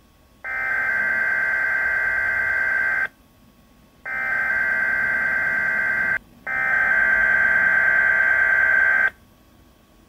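SAME digital alert header from a weather radio broadcast, heard through a Midland WR120EZ weather radio's speaker: three bursts of harsh warbling data tones, each two to three seconds long, with short quiet gaps between. The coded header announces a Winter Storm Warning.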